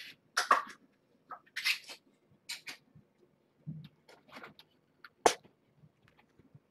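Kittens scampering and tumbling right at a floor-level camera: irregular scuffs and rustles, with sharp knocks about half a second and five seconds in.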